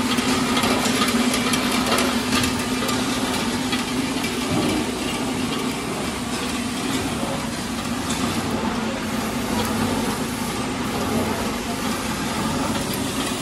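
Screw-type oil expeller running while pressing seed, with a steady hum and scattered crackling ticks.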